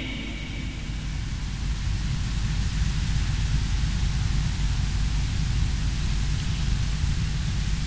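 Steady hiss with a low, flickering rumble beneath it, with no singing.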